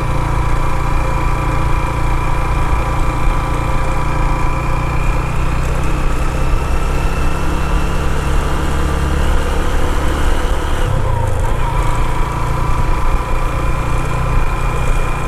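Motorcycle engine running steadily under way, heard from the rider's seat. The engine note dips briefly about eleven seconds in, then settles back to steady.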